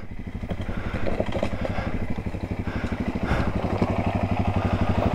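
Single-cylinder four-stroke dirt bike engine running at low, steady revs with an even pulsing beat.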